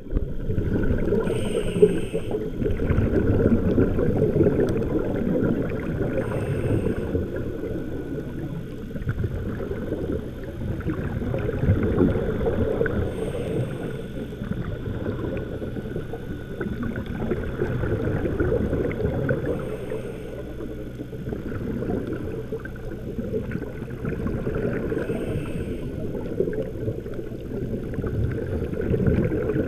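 Underwater sound picked up by a camera in its waterproof housing: a steady low rumble of moving water, with a short hiss about every six seconds from a scuba diver's regulator breathing.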